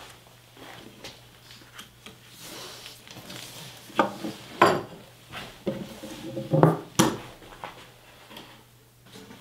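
Carving tools and the wooden slab being handled, giving a handful of sharp metallic clinks and wooden knocks between about four and seven seconds in, over quieter rubbing and handling.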